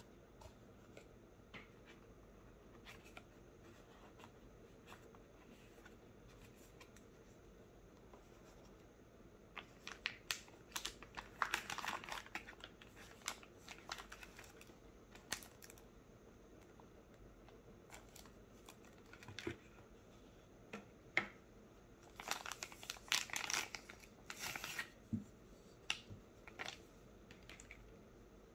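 Clear plastic packaging sleeve crinkling and rustling as it is handled, in two spells, about ten seconds in and again past twenty seconds, with faint taps and clicks of handling in between.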